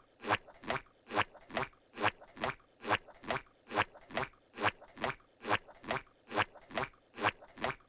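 Steady rhythmic crunching, a little over two sharp strokes a second, alternating slightly louder and softer.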